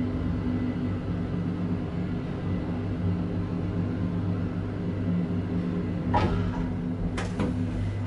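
Schindler elevator running with a steady low hum in the car, then a short falling swish about six seconds in and a sharp click about a second later as the car arrives at the floor.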